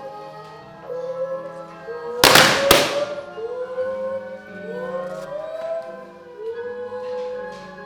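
Music with a sliding, wavering melody line, broken about two seconds in by two loud sharp hits half a second apart.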